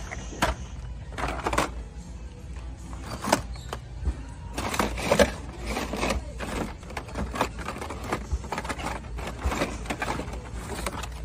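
Hot Wheels blister-card packages clacking and rustling as they are flipped through and pushed aside on metal store pegs, a string of irregular plastic clicks over background music.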